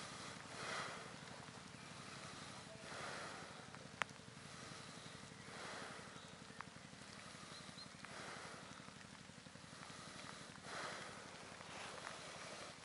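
ATV engine idling low and steady. Over it come slow swells of hissing breath about every two and a half seconds, heavy breathing close to the microphone, and a single sharp click about four seconds in.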